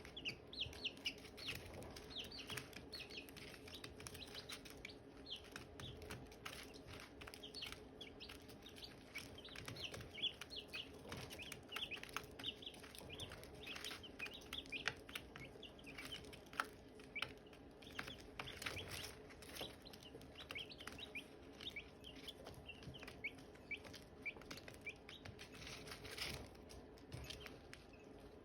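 Silkie chicks peeping: many short, high chirps, several a second, over a faint steady low hum.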